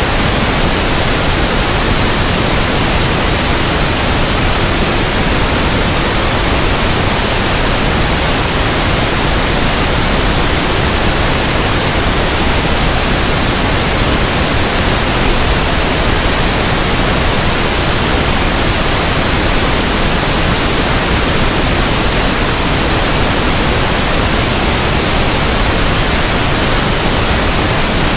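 Steady synthetic pink noise: an even, unchanging hiss spread across all pitches, with no variation.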